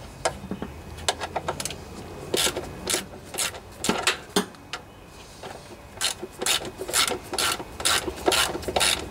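Socket ratchet wrench clicking in quick runs, with a pause about halfway through, as screws are backed out of a lawn tractor engine's plastic shroud.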